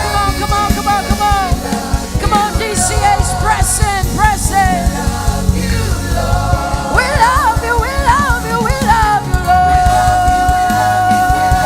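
Live gospel worship music: band with a singer's wordless vocal runs, the voice bending up and down, settling into a long held note near the end.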